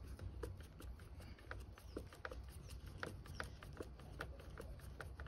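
Faint, irregular clicks and ticks of hand work on a motorcycle's front turn signal: screws being undone and small plastic and metal parts handled.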